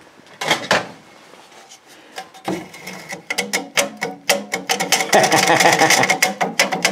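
Cut-down vintage one-man bucking saw being pushed and pulled through an old wooden beam held in a bench vise. The sawing starts about three seconds in and grows denser, a fast run of raspy tooth clicks over a steady ringing tone.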